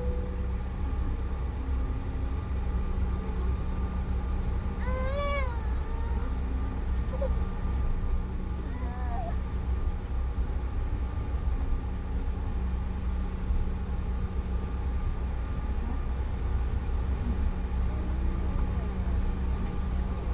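Steady low cabin rumble and hum of a Bombardier CRJ900 airliner with its engines running. About five seconds in, a short high call rises and falls once, with a fainter one about four seconds later.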